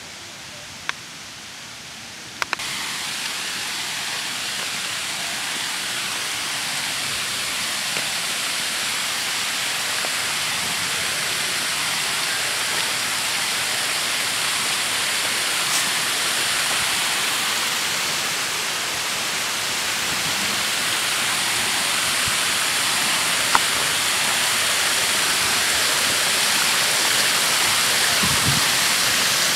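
Waterfall spilling over wide, stepped flat rock ledges into a pool: a steady rushing hiss. It is quieter at first, steps up about two and a half seconds in, then grows slowly louder.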